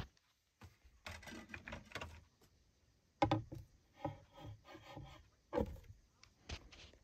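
Vinyl LP being handled and set down on a turntable's felt platter mat: rubbing and scraping, with a couple of soft knocks near the end.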